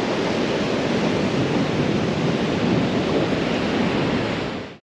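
Ocean surf breaking on a sandy beach, a steady wash of waves with some wind on the microphone; it cuts off suddenly near the end.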